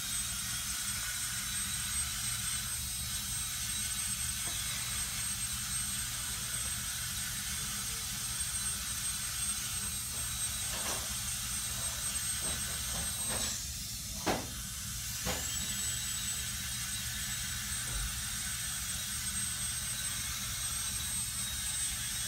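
Dental handpiece running on teeth: a steady high-pitched whine over a hiss of air. The whine cuts out about 13 seconds in and spins back up about two seconds later.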